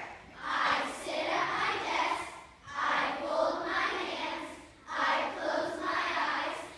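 A group of children's voices chanting lines in unison, as choral speaking, in three phrases with short pauses between them.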